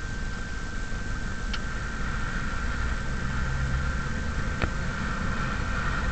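Monster truck engine running at low speed, heard from inside the cab while the truck manoeuvres slowly, with a thin steady whine and a couple of faint clicks.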